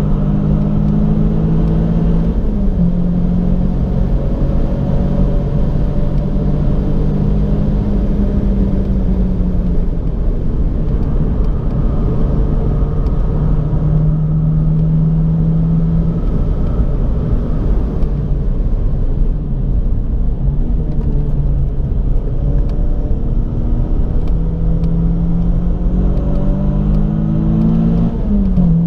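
Renault Clio 182's 2.0-litre 16-valve four-cylinder engine, heard from inside the cabin at track pace, over a steady low road rumble. Its pitch climbs under acceleration and drops sharply at upshifts about two and a half seconds in and again near the end.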